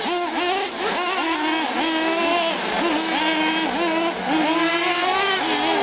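Small two-stroke nitro glow engines of 1/8-scale R/C offroad cars running on the track, revving up, holding, and dropping back about once a second as the throttle goes on and off, with a high buzzing whine.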